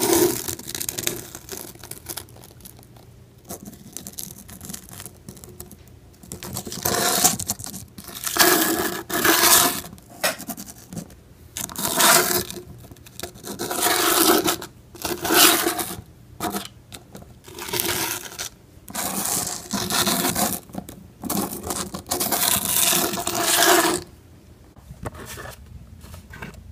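Skating scrapes: about a dozen separate scraping strokes, each under a second, with short gaps between.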